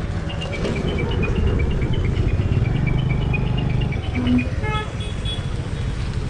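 Road traffic heard from a riding motorcycle, with a steady low rumble of engine and wind. Quick high beeps alternating between two pitches run through the first two-thirds, and a vehicle horn toots briefly about three-quarters of the way in.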